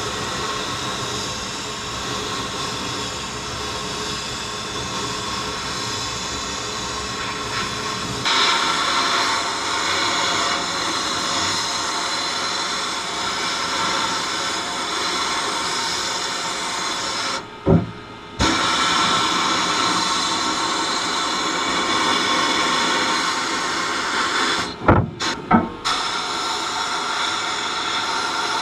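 Pistol-grip abrasive blast gun in a sandblasting cabinet, a steady loud hiss of air and grit as it strips paint from pressed-steel toy truck parts. The blast cuts out for a moment a little past two-thirds of the way through, then stops and restarts in a few quick stutters near the end.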